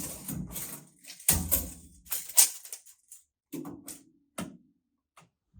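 Irregular knocks, clicks and clatters of hard objects being handled, about eight of them, several with a dull thud, fading out over the last second.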